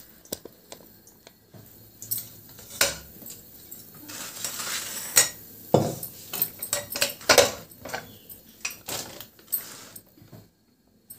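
Metal kitchenware being handled on a stone counter: steel bowls, an aluminium pressure cooker and utensils clinking and knocking as they are moved and set down, with a short scrape about four seconds in.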